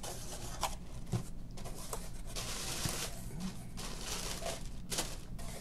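Tissue paper rustling and crinkling in irregular bursts as it is unfolded from a packed cardboard box, with a few sharp clicks.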